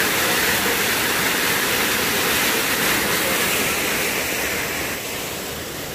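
Small forest waterfall pouring into a rocky pool: a steady rush of falling water that gets a little quieter near the end.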